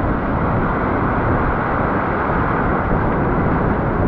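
Breaking surf and foaming whitewater rushing around a camera held at water level: a loud, steady rushing noise.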